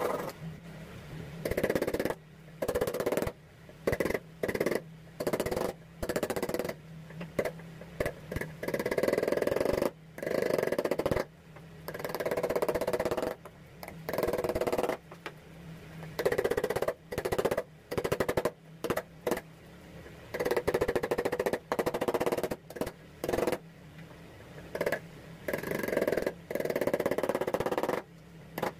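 Hand tools cutting a small piece of hardwood held in a bench vise: hand-saw strokes and a wood chisel paring and being knocked through, in irregular bursts of rasping with sharp knocks between them. A steady low hum runs underneath.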